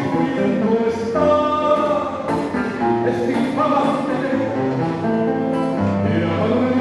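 A man singing into a handheld microphone over instrumental accompaniment, holding notes that change pitch every second or so.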